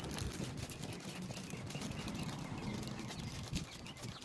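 Footsteps of a person walking, a run of faint repeated steps over steady low background noise.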